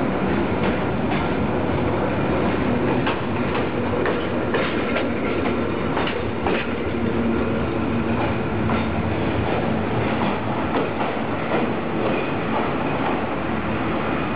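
Vintage Trieste–Opicina tram running close by on its track: a steady rumble of wheels and running gear, with a run of sharp clacks over rail joints and points about three to seven seconds in.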